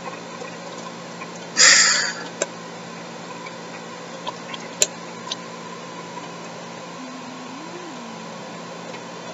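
Handling noises of an eyeliner pen: a short hissing rustle about a second and a half in, then a sharp click near the middle and a few light ticks, over a steady low hum.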